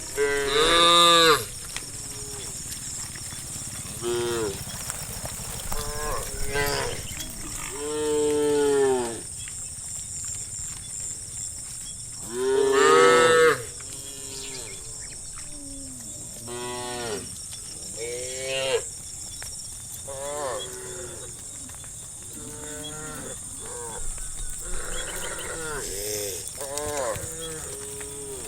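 A herd of cattle mooing, call after call from several cows, some overlapping; a few long, loud moos stand out about a second in, a third of the way through and near the middle, with shorter, quieter moos between. A steady high-pitched hum runs underneath.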